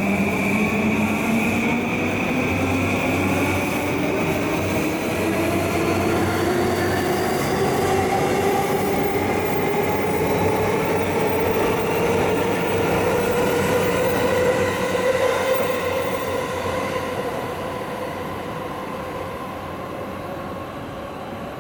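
Yamanote Line electric commuter train accelerating away, its motor whine rising steadily in pitch for about fifteen seconds, then fading as it recedes.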